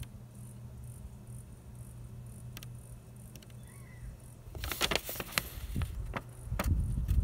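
Paper sheets rustling and crackling as they are handled, in a cluster of sharp, irregular crackles starting a little past halfway. Under it, a steady low hum and faint insects chirring.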